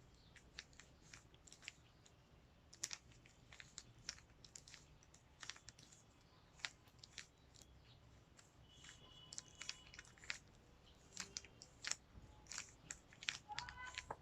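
Plastic Rubik's Cube being turned by hand, its layers clicking and clacking in quick irregular runs while the final step of a solve is worked through.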